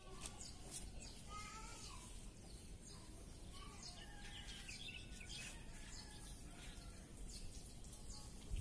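Faint outdoor background noise with small birds chirping on and off: short, high calls scattered throughout.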